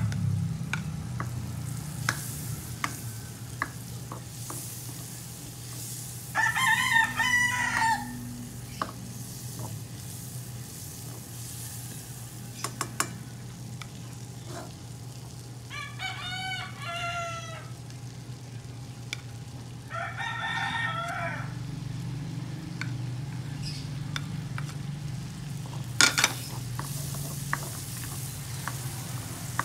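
A rooster crows three times, about 6, 16 and 20 seconds in, over food sizzling in a wok while a spatula stirs and taps the pan. There is one sharp clack of a utensil about 26 seconds in.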